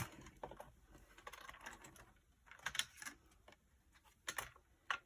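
Light clicks, taps and rustling as a watercolour set is unpacked and its metal tin opened, in small scattered bursts.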